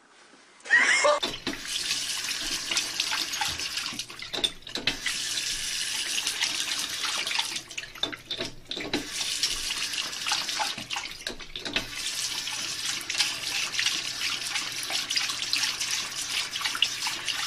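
Bathroom sink faucet running in a steady stream, with a few short dips. It starts about a second in, with a brief squeak at the onset.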